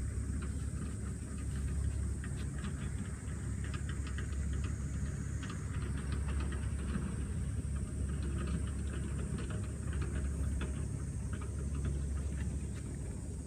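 Wind rumbling steadily on the microphone, with faint scattered rustles and ticks throughout.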